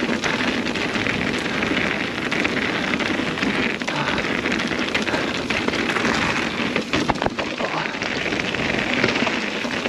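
Tyres of a Nukeproof Mega 275 mountain bike rolling over a rough trail surface, a steady crunching rush mixed with rattles from the bike. A quick cluster of sharp knocks comes about seven seconds in.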